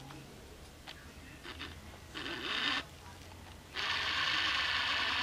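Autofocus motor of a Canon 18-55mm f/3.5-5.6 IS kit lens whirring in two bursts: a short one, then a longer one of nearly two seconds, each starting and stopping abruptly. A few faint clicks come before them.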